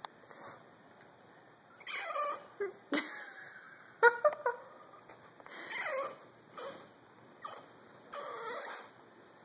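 French Bulldog whining for food, a string of high-pitched whines, several sliding down in pitch, with a few shorter, sharper cries in the middle.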